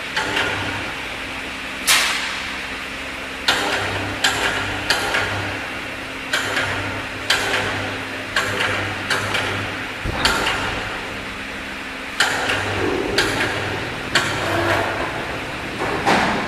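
A run of sharp knocks and clanks, about sixteen at irregular intervals of roughly a second, over a steady machine hum with a low buzz that cuts in and out.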